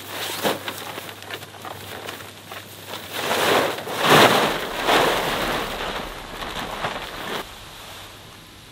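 Plastic tarp being unfolded and shaken out, crinkling and flapping in irregular swishes, loudest about three to five seconds in, then stopping suddenly as it is laid flat on the grass.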